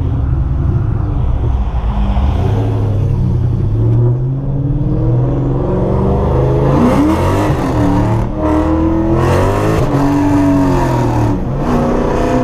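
Mustang's 4.6-litre three-valve V8 with aftermarket exhaust running, its pitch rising about two-thirds of the way through as it is revved, holding high, then swelling once more and easing off near the end.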